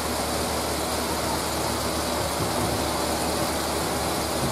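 Steady whirring of large electric fans running, with a low steady hum beneath it.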